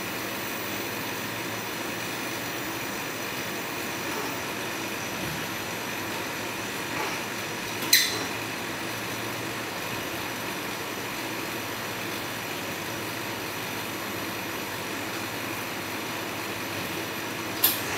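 Steady whirring hum of a tile-placing assembly robot, broken twice by a short sharp click, about halfway through and near the end, as its placing head sets mosaic tiles down.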